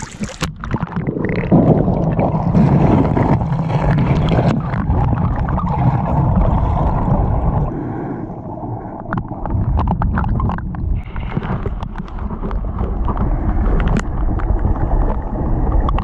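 Muffled sloshing and gurgling of creek water, heard with the microphone dipped under the surface of a shallow pool.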